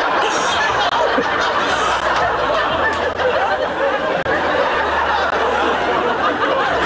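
Studio audience laughing in one long, unbroken wave of laughter after a punchline.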